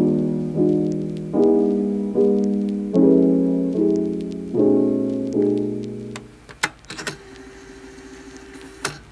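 Background piano music, a soft chord struck about every 0.8 seconds, dying away about six seconds in; then a few faint clicks.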